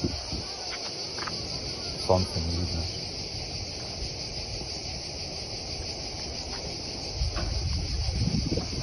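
Steady, high-pitched shrilling of insects in the summer scrub. A brief louder sound comes about two seconds in, and wind rumbles on the microphone near the end.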